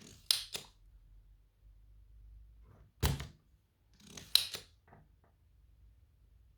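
A few sharp clicks and knocks of hand tools at work on a circuit board while desoldering a stuck battery: two close together near the start, one about three seconds in, and a small cluster about four and a half seconds in.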